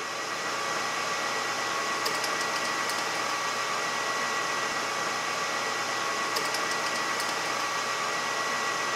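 Metal lathe running steadily with a whining hum while a reamer in the tailstock drill chuck is fed into the spinning metal workpiece's hole and withdrawn. Faint light ticks come now and then.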